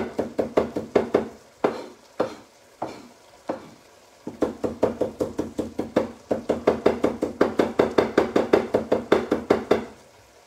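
Knife chopping fresh parsley on a cutting board in fast, even strokes, about five or six a second. About a second and a half in it slows to a few scattered chops, then picks up the quick chopping again.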